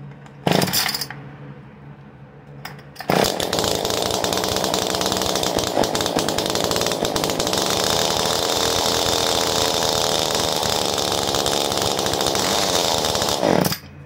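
Echo HC2020 hedge trimmer's two-stroke engine, on full choke, being started: a short loud burst about half a second in, then it catches about three seconds in and runs steadily for about ten seconds before cutting off suddenly. It now runs with its carbon-clogged exhaust opened up, which it would not do before.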